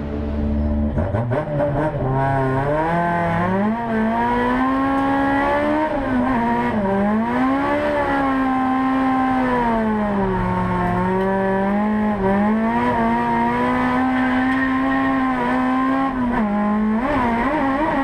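Toyota AE86 drift car's engine heard from inside the cabin, revving hard, its pitch rising and falling again and again as the throttle is worked through a drift. The engine note comes in about a second in.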